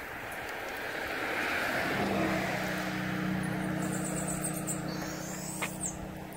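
A car passing by: its road noise swells over the first couple of seconds and fades away, with a steady low hum from about two seconds in. Insects chirp faintly.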